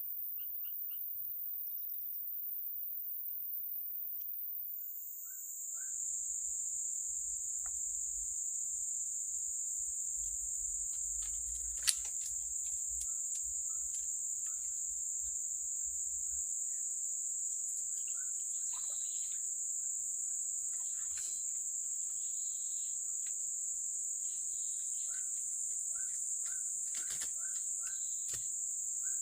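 Insects trilling steadily in a high, unbroken drone. About five seconds in, a louder, somewhat lower trill starts up and carries on, while birds chirp in short paired notes now and then. A single sharp click sounds about twelve seconds in.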